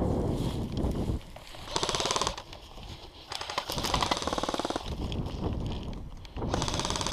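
Airsoft electric rifle firing full-auto bursts, each a fast, even rattle of shots: a short burst about two seconds in, a longer one about a second later, and another starting near the end. Low rustling noise comes before the first burst.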